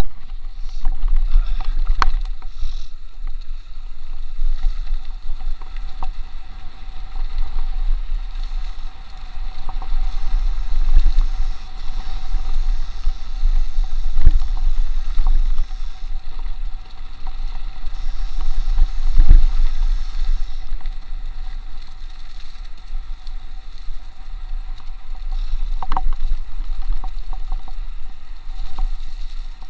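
Mountain bike descending a dirt trail at speed: a steady low rumble of wind buffeting the action camera's microphone and tyres rolling over dirt, with a few sharp knocks from the bike jolting over bumps.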